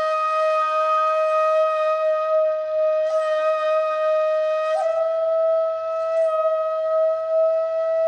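Background music: a flute holding one long note, rising slightly about five seconds in, with breathy accents a few times along the way.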